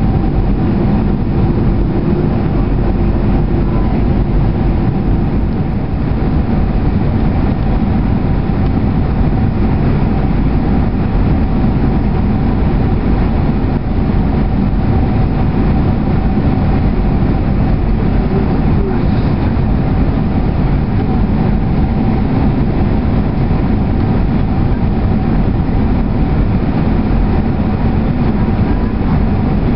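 Cabin noise of a Boeing 767 on final approach, heard from a window seat beside the wing: the steady roar of the engines and the airflow over the extended flaps, with a steady whine over it.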